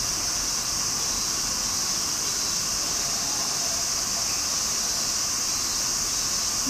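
A steady, high-pitched hiss that stays level and unbroken, with no other distinct sound in it.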